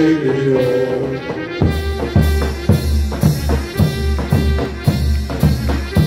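Mehter band playing a march: the band's melody runs on, and about a second and a half in the kös kettledrums, davul and zil cymbals come in with heavy, even beats about two a second.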